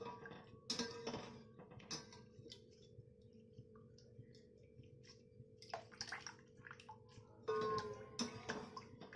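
A long metal spoon stirring milk and cream in an aluminium pan, with scattered scrapes and clinks against the pan, the loudest a ringing scrape near the end. A steady low hum runs underneath.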